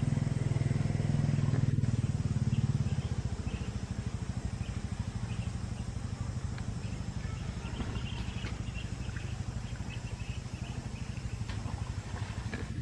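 An engine running steadily with an even, pulsing low drone that eases off about three seconds in. Faint short high chirps sound over it.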